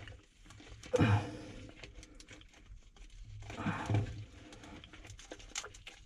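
Light clicking and scraping of a metal band clamp being worked by hand as its screw is started, with two short strained grunts of effort, about a second in and near the middle.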